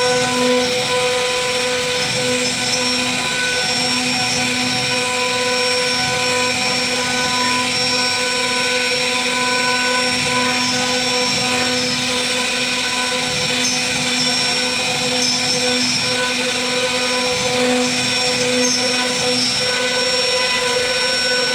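CNC router spindle running at speed and carving a wooden relief panel: a steady high whine with the noise of the bit cutting wood, the lower tone swelling and easing a little as the cut goes on.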